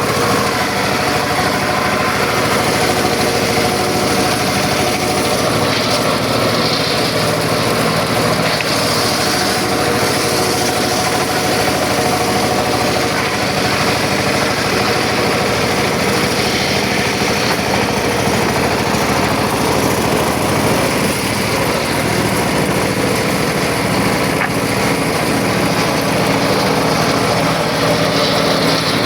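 Circular saw running steadily, a constant machine drone that holds one pitch throughout.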